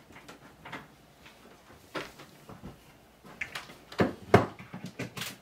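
Scattered plastic clicks and knocks of a battery charger and its cord being handled and plugged into a wall socket, with a cluster of sharper clacks about four seconds in.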